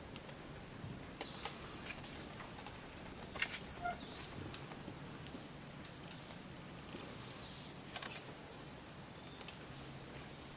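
Steady, high-pitched drone of rainforest insects, with a few faint clicks.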